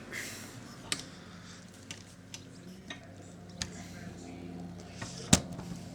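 Scattered small clicks and taps from handling the parts of an opened video recorder, with one sharper knock about five seconds in.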